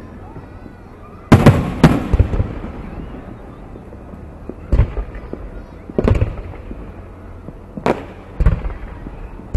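Aerial fireworks shells bursting overhead: about six booms at uneven gaps of one to two seconds, the loudest pair about a second and a half in, each trailing off with an echo.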